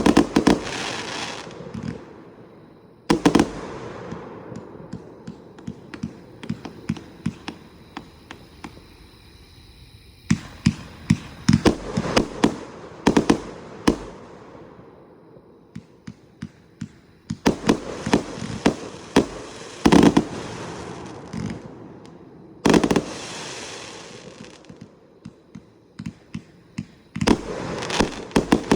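A 238-shot firework cake firing: rapid trains of sharp bangs and pops in several dense volleys a few seconds apart, each volley trailing off in a hissing crackle.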